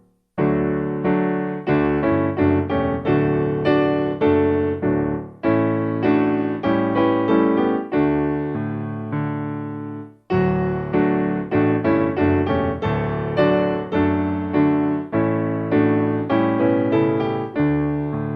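Background piano music: a gentle melody of single struck notes. It breaks off briefly about ten seconds in and starts again.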